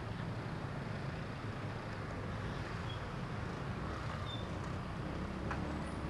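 Steady engine and road noise from a moving vehicle in town traffic.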